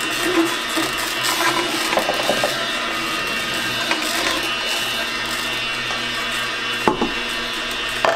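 Kuvings commercial cold-press masticating juicer with its slow auger crushing carrots: an irregular crunching and grinding over the motor's steady hum, with two sharp cracks near the end.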